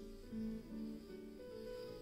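Soft background instrumental music: a slow melody of single held notes.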